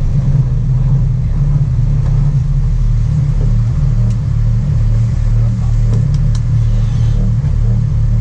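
Sport-fishing boat's engine running at a steady, even drone, with a few faint ticks over it.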